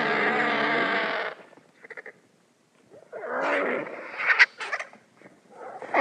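Sound-designed Qiupalong (ornithomimid dinosaur) calls: a long pitched, layered call that stops about a second in, a short faint call near two seconds, then after a pause a harsher call with a few sharp, shrill cries near the middle, and another call beginning at the end.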